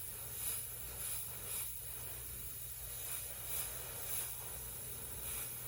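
Airbrush hissing as it sprays paint, with short swells of spray that come and go every second or so.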